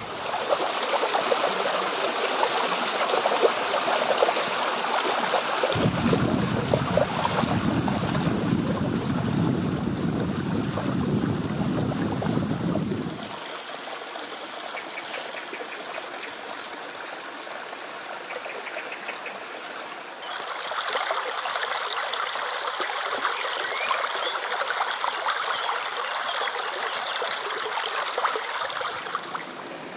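Shallow stream running and trickling over stones, a steady rush of water. It changes abruptly: a deeper rush joins about six seconds in, the sound drops quieter about thirteen seconds in, and it grows louder and brighter again about twenty seconds in.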